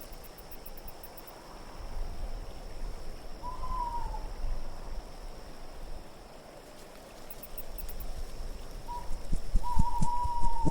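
Wind gusting in slow swells, with an owl hooting twice: a short call a few seconds in and a longer, slightly falling one near the end. A few low knocks come in near the end.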